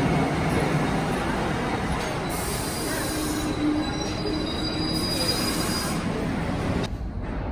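A New York City subway train running on the rails, its steel wheels squealing in thin high tones over the steady running noise. The highest part of the sound drops away suddenly near the end.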